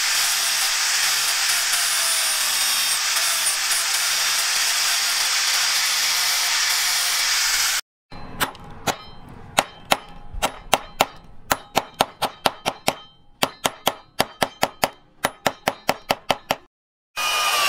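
Angle grinder running with its disc pressed against the end of a wooden knife handle: a steady high hiss that stops abruptly about eight seconds in. Then a small hatchet head taps a steel needle-roller bearing cage down onto the wooden handle as a ferrule: sharp, ringing metallic taps, about three a second, with a couple of short pauses.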